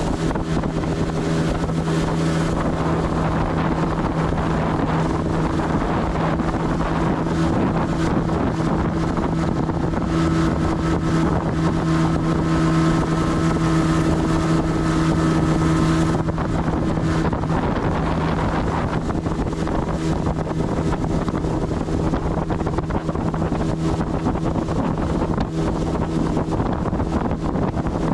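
Boat's outboard motor running steadily under way, a constant engine hum, with wind buffeting the microphone. The engine note eases slightly a little past halfway.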